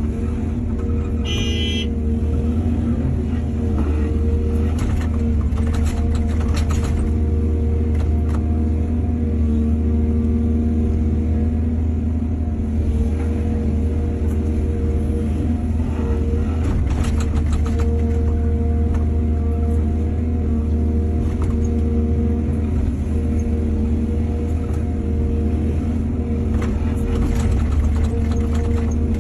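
Excavator's diesel engine running steadily, with a few scattered knocks and a brief high squeal a second or two in.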